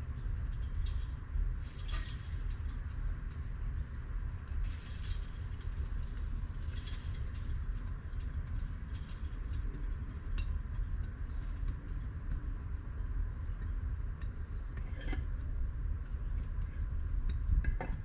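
Scattered small clicks and clinks of hand work on truck wiring during a solder repair, over a steady low rumble.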